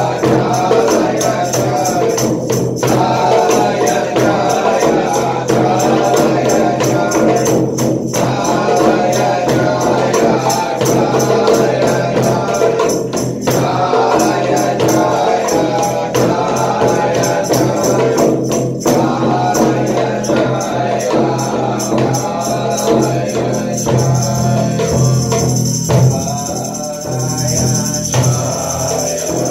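Chant music: voices singing over a low drone, with a fast, steady jingling percussion beat. The music breaks off briefly about every five seconds, and the jingling thins out near the end.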